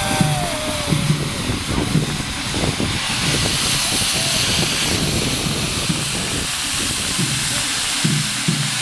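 Handheld tube firework (tezutsu hanabi) spraying with a rushing hiss that swells about three seconds in, over steady taiko drum beats.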